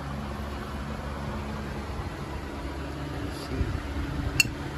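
Steady low mechanical hum, like an engine or machine running, with one sharp click near the end.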